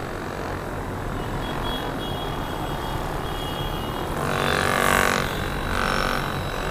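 Handheld percussion massage gun running against the body: a steady motor buzz, with a louder, brighter stretch about four seconds in.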